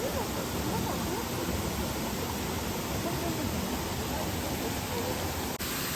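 Steady rush of a mountain waterfall: an even hiss of falling water, changing abruptly near the end.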